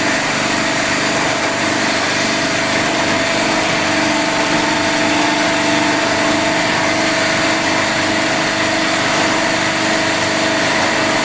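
Crystal ice machine running with a steady mechanical hum and hiss, with several unchanging tones.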